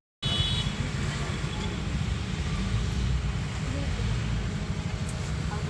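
Steady low rumble of a car on the move, engine and road noise.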